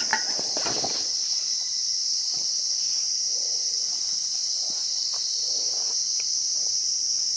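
Steady, high-pitched chorus of crickets, with a few faint scattered clicks.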